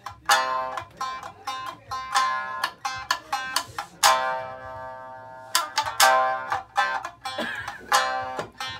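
Tsugaru shamisen played solo: a run of sharp, plectrum-struck notes, with one long ringing note about four seconds in.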